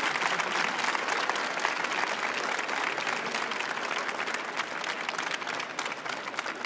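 Audience applauding: dense, steady clapping from many hands that thins and fades a little toward the end.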